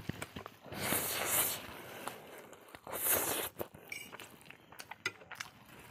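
A person slurping spicy instant noodles into the mouth in two loud slurps about a second and three seconds in, each about half a second long, followed by wet chewing with small clicks.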